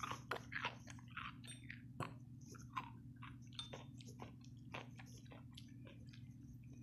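Someone chewing close to the microphone: irregular short clicks over a low steady hum.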